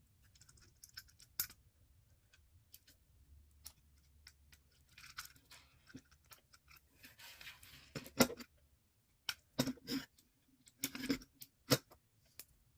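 Plastic Lego pieces being handled and snapped together: sharp clicks and clacks, with louder ones in the second half. There is a stretch of soft rustling about halfway through.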